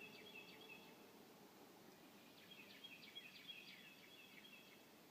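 Faint birdsong: short, quick chirping notes, a brief run at the start and a longer run about two and a half seconds in, over a quiet background.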